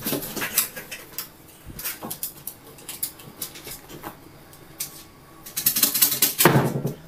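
A small dog scrambling about on a bed: paws rustling on the bedding and claws clicking and scraping on the wooden headboard, in scattered short clicks with a louder stretch of scrabbling near the end.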